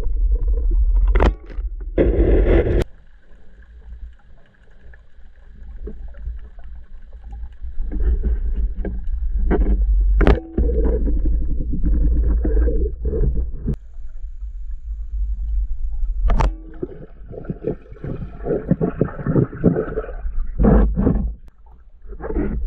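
Water sloshing and gurgling around a camera during spearfishing, over a heavy low rumble. Several sharp knocks come through it at irregular moments.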